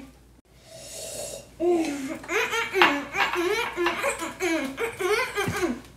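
A girl laughing: a long run of short, pitched giggling bursts starting nearly two seconds in.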